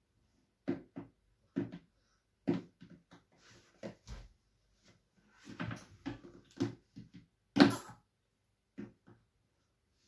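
Short noises from a breastfeeding baby, grunts and gulps at the breast, about one a second, with a louder, sharper one near the end.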